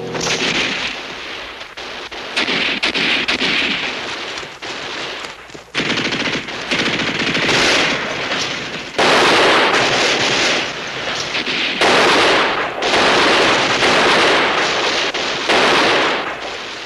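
Repeated long bursts of machine-gun fire, rapid shots running together with short lulls between bursts; the loudest bursts begin about nine and twelve seconds in.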